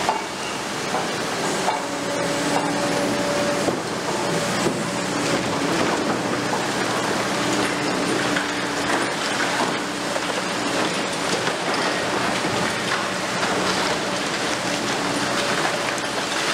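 Liebherr R 950 Demolition long-reach excavator at work: its engine and hydraulics give a droning tone that comes and goes. Over it runs a continuous rushing hiss with scattered clatter of broken concrete and debris falling down the building.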